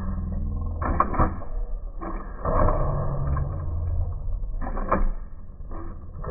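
Servo-driven hydraulics of an AMT 1962 Impala model lowrider working as the car hops: small servo motors whirring and plastic parts clacking as the front end lifts and drops, with sharp knocks about a second in and again near five seconds.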